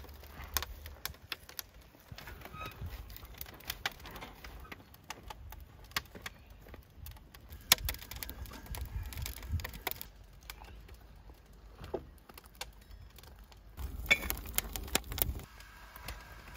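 A metal samovar being handled and set down on stone, with scattered metallic clinks and knocks, the sharpest a little under halfway through, among small crackles and rustling.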